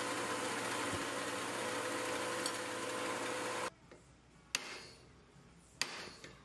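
Belt grinder running steadily, then stopping abruptly about two-thirds of the way through. After that come two sharp hammer blows on a cold chisel, each ringing briefly, as the chisel cuts teeth into a W1 drill-rod steel checkering tool.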